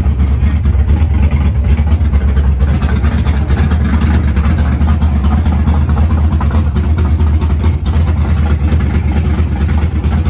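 A vehicle engine running steadily at low revs close by, a continuous low rumble.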